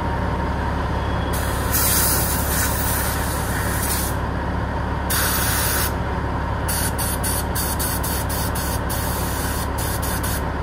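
Compressed-air blow gun hissing in blasts as a clogged fuel tank vent is blown clean. Two long blasts come first, then a quick run of short puffs near the end, over a steady low hum.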